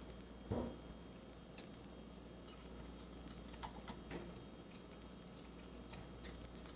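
Faint, scattered small metal clicks and ticks, with one soft knock about half a second in, from a valve spring being compressed on a cylinder head with a drill press and a ground-down socket.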